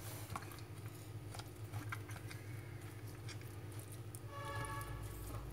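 Metal fork repeatedly stabbing pork belly skin on a wooden cutting board, making quiet irregular clicks and taps, pricking the rind so it blisters and crisps when fried. A steady low hum runs underneath, and a faint pitched tone comes in near the end.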